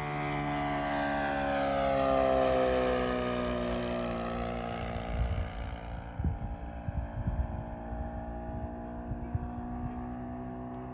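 Single-cylinder four-stroke gasoline engine (O.S. GF40) of a 1:6 scale F8F Bearcat RC model plane flying past, loudest about two seconds in, its pitch falling as it goes by, then running steadily further off. From about five seconds on, wind buffets the microphone with low thumps.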